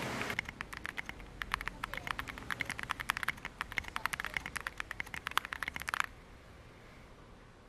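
Fast typing on a mechanical keyboard with Boba U4t tactile switches, PC plate and DCS keycaps: a quick run of keystroke clacks that stops about six seconds in, leaving only a few faint taps.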